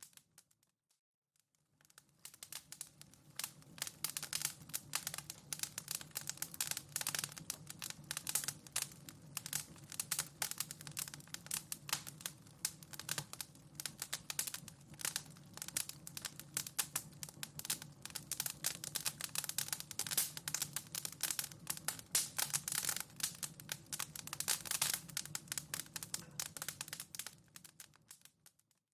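Wood fire in a fireplace crackling, with dense, irregular snaps and pops over a steady low rumble. It fades in about two seconds in and fades out near the end, at the loop's seams.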